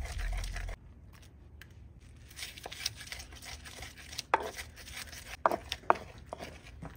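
Wooden pestle grinding and scraping hot pepper and onion against the ridged inside of an earthenware grinding bowl (asanka), with scattered gritty clicks. There are a few sharp knocks of wood on clay in the second half. A low rumble at the start cuts off abruptly under a second in.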